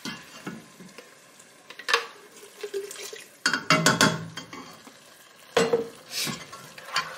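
A plastic blender jar knocking and clattering against a cooking pot as the last of a watered-down blended pepper mixture is poured and shaken out, a few scattered knocks with quieter handling and pouring between.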